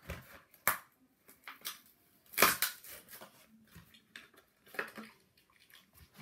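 Packaging of a die-cast toy car being torn and pulled open by hand: irregular sharp crackles and snaps, the loudest cluster about two and a half seconds in.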